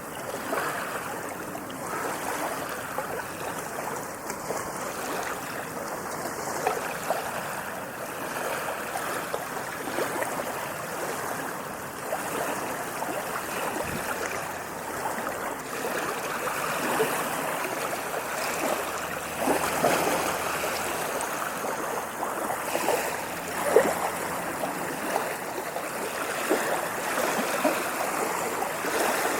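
Ocean waves washing steadily, a continuous rush of water full of small splashes, with a sharper splash about 24 seconds in.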